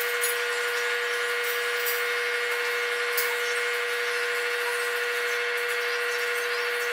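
A steady whine holding one pitch at an even level, with a couple of faint clicks over it.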